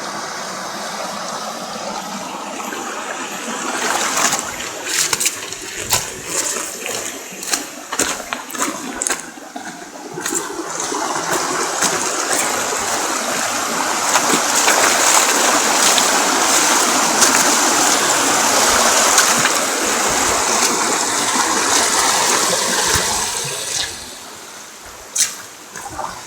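Steady rush of falling and flowing water, growing louder about ten seconds in and dropping off a couple of seconds before the end, with scattered clicks and knocks over the first half.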